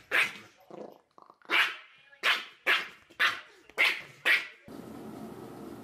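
Small dog barking in a quick series of about seven sharp barks as it play-fights with a cat. Near the end the barking gives way to a steady hiss.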